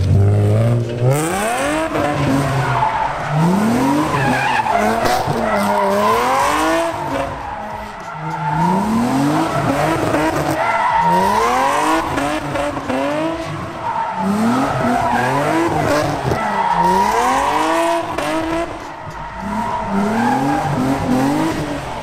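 Infiniti G35 coupe's 3.5-litre V6 revving up and down over and over, its pitch rising and falling every second or two, with tyres squealing as the car spins donuts.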